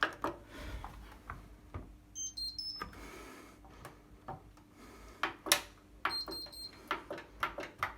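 Indesit IWC71252WUKN washing machine's electronic control panel beeping: a short run of high tones of different pitches a little over two seconds in, then a quick string of same-pitch beeps around six seconds in. Scattered clicks and knocks run through it.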